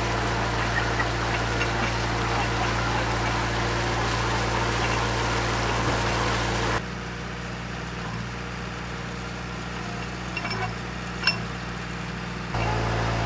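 Drilling rig's engine running steadily with a low hum. About seven seconds in the sound drops abruptly to a quieter level, with a single sharp click late in the quiet stretch, then comes back up just before the end.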